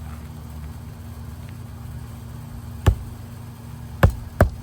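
Hammer driving a roofing nail through an asphalt shingle into the roof deck: three sharp strikes, one about three seconds in and two close together near the end.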